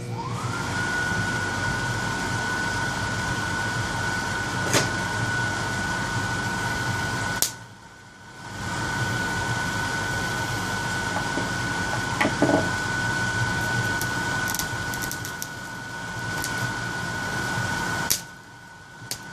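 Rewound microwave oven transformer switched on, driving hundreds of amps through a steel wrench: a steady hum and hiss with a high whine that rises in at the start, a few sharp clicks, and the power cut off twice for about a second.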